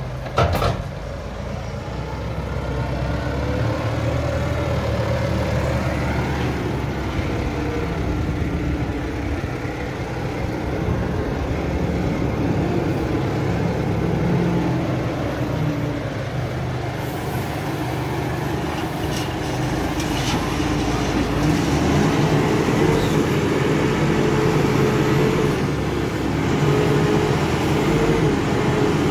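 Claas Arion tractor's diesel engine running steadily, its pitch shifting up and down every few seconds as it drives and works the front loader.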